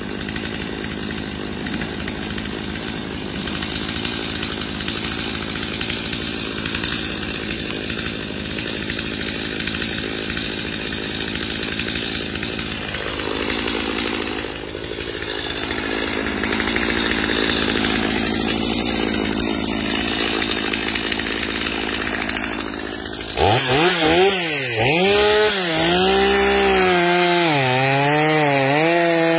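Stihl MS250 two-stroke chainsaw running steadily, then about three-quarters of the way through it suddenly gets louder and cuts into a log, its pitch rising and falling as the chain takes the load.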